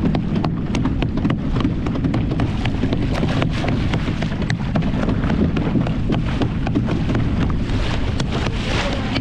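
Steady low rumble of a boat under way, with wind on the microphone and water rushing and splashing at the bow, crossed by many short sharp clicks.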